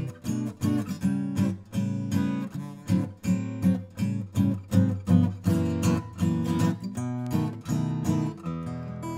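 Furch Red Series G-LC auditorium-size acoustic guitar, Alpine spruce top with cocobolo back and sides, strummed in a steady rhythm of a few strums a second with full ringing chords.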